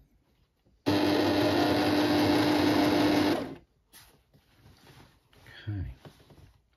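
Sewing machine stitching through cushion-cover fabric in one steady run of about two and a half seconds, its motor humming at an even pitch, then stopping sharply. A short low sound falling in pitch follows a couple of seconds later.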